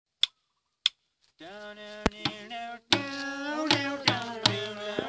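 Two sharp clicks, then singing over a steady beat on makeshift percussion: plastic containers, a jerrycan and a bucket, struck with sticks about once every 0.8 seconds.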